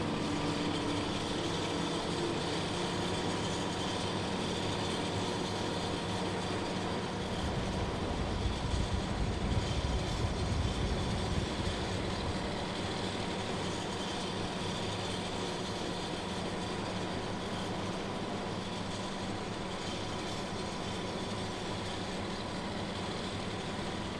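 WWII half-track engine running steadily on the road, heard from aboard, with a heavier low rumble partway through.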